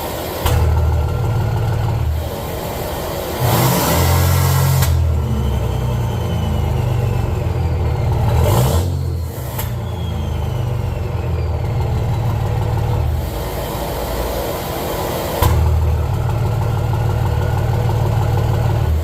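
5.9 Cummins turbo-diesel with a 5-inch axle-dump exhaust, revved up about three times between stretches of idle. Twice a high turbo whistle falls in pitch as the turbo spools down.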